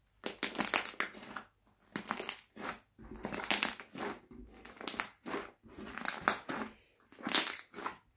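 Fluffy slime squeezed and kneaded by hand, crackling and popping in a string of irregular bursts, one with each squeeze.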